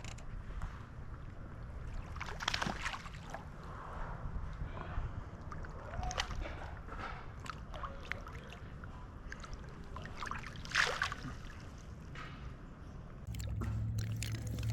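Water sloshing and gurgling, with scattered small splashes and knocks over a low steady rush. A steady low hum comes in near the end.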